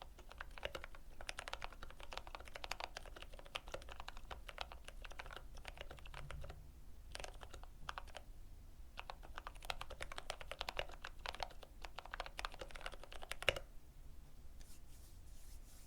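Keychron K8 mechanical keyboard with lubed brown switches being typed on in quick runs of keystrokes, with a short pause about six seconds in. The typing stops near the end on one louder key press.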